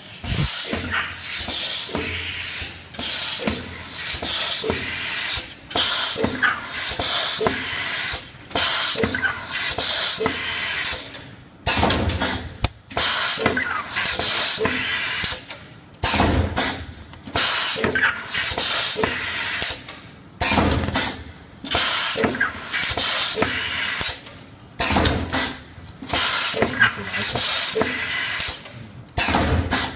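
Automatic steel-rule creasing and bending machine working through its cycle: repeated bursts of hissing, mechanical noise, each one to three seconds long, broken by short pauses.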